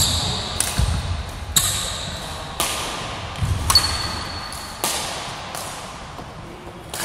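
Badminton rally: sharp racket-on-shuttlecock hits about once a second, ringing in the hall, with thuds of footfalls on the wooden court. The hits stop about five seconds in.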